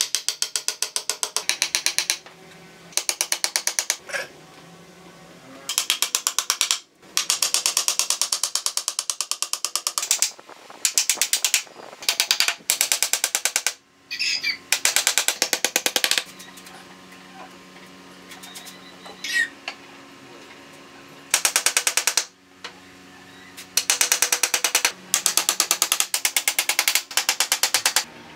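Claw hammer driving nails into a wooden frame: runs of fast, even blows, about ten a second, each run lasting one to two seconds, with short pauses between.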